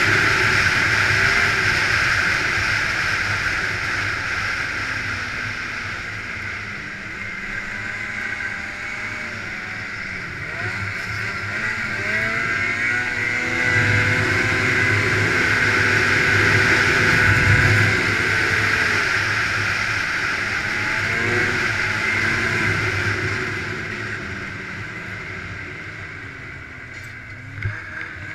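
Snowmobile engine running at speed on the move, its pitch rising and falling with the throttle. It eases off over the last few seconds, and a short knock comes near the end.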